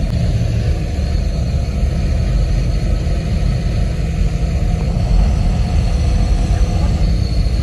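Steady low road and engine rumble heard from inside a moving bus.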